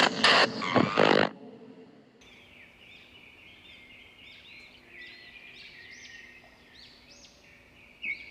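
Birds chirping and singing in many short, high, repeated calls, starting about two seconds in. Before that, a loud noisy burst of intro sound cuts off suddenly about a second in.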